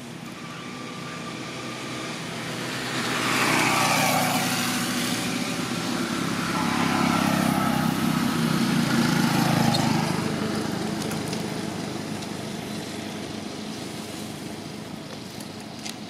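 Road traffic passing: one swell of vehicle noise peaks about four seconds in, then a motorbike's engine rises, is loudest around the middle, and fades away.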